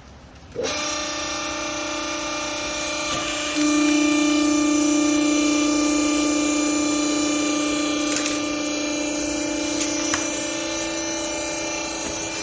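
Hydraulic power unit of a textile baler starting abruptly and running with a steady whine, which gets louder about three and a half seconds in.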